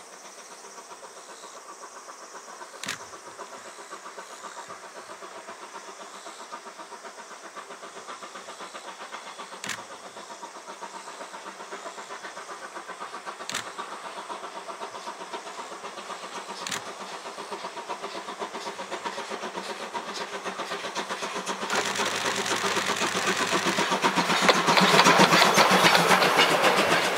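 JNR Class C11 steam tank locomotive approaching with its train, growing steadily louder, then passing close with its old passenger coaches, the wheels clattering rapidly over the rails near the end. A few sharp clicks stand out earlier on.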